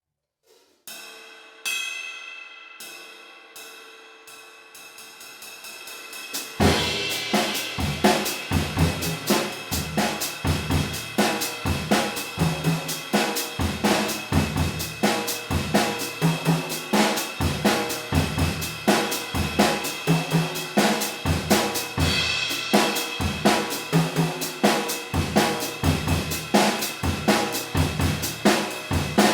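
A 20-inch Zildjian Oriental Crash of Doom, a china-type effects cymbal, struck a few times on its own and left to ring with a trashy wash. About six seconds in, a full drum kit joins with a steady beat of bass drum, snare and cymbal.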